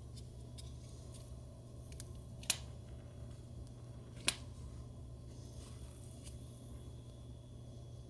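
Two sharp cracks, under two seconds apart, from the facet joint of a Dynamic Disc Designs lumbar spine model as it is gapped, imitating the audible release of a spinal manipulation. A few faint ticks come before them.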